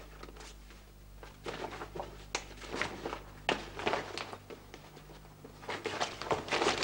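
Irregular rustling and small clicks of a wallet and papers being handled and searched through, thicker near the end, over a faint steady hum.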